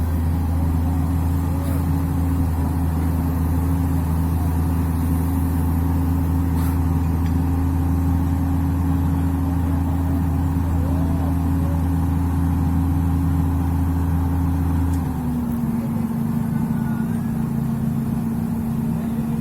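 Komatsu PC200 hydraulic excavator's diesel engine running steadily under work. About 15 seconds in, the engine note drops slightly and its deepest part falls away.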